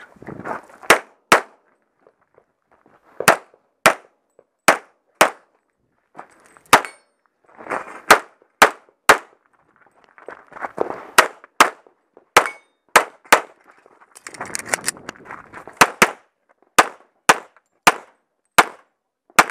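Pistol shots fired in quick pairs on a competition stage run, about twenty cracks in all. Short pauses fall between groups, filled with the noise of the shooter moving between positions.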